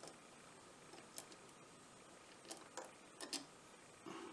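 Near silence with a few faint, sharp clicks of small metal parts being handled: ring-terminal wires and small nuts being fitted onto the studs of a 12 V circuit breaker.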